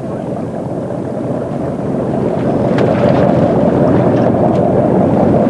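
Steady rushing noise of wind on the microphone aboard a fishing boat at sea, growing a little louder about two seconds in.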